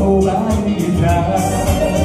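Live song performance: male voices singing a heartfelt pop song about friendship over full instrumental backing with a steady beat.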